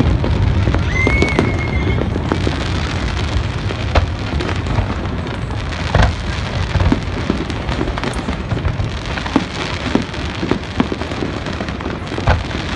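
Aerial fireworks display: a dense crackle of many small bursts over a continuous low rumble of booms, with a short whistle about a second in.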